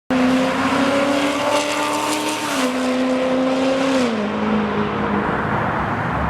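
Supercharged C7 Corvette V8 running loud, a pitched engine note over heavy exhaust noise that steps down in pitch twice.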